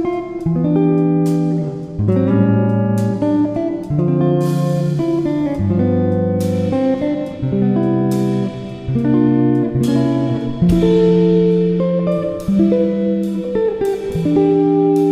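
Instrumental background music of plucked string notes and chords, a new note or chord about every half second.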